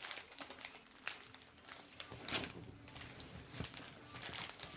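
Foil McCoys crisp packet crinkling as a small child handles it, in irregular rustles, loudest a little past halfway.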